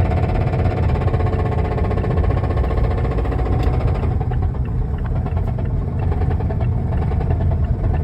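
Mazda's failing engine running with a heavy, rapid knock while the car is driven; the higher part of the noise drops away about four seconds in. The knock is very loud, the sign of an engine worn out badly enough to need replacing.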